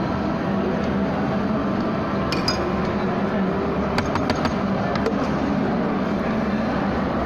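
Utensils clinking against a stainless steel mixing bowl while rice salad is stirred: a couple of clinks about two seconds in and a quick run of several around four seconds in, over a steady background hum.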